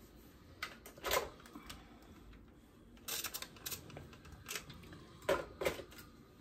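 A clothes iron pressing a seam on a padded ironing board, with the cotton fabric being handled. There are several short rustling and scraping sounds, the loudest about a second in and near the end.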